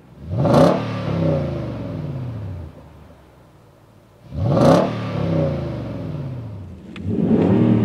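Nissan Titan's 5.6-litre V8 through a Flowmaster FlowFX Extreme cat-back exhaust with a dump exit, revved from idle. There are two quick revs about four seconds apart, each rising sharply and then falling back to idle, and the engine is revved again near the end.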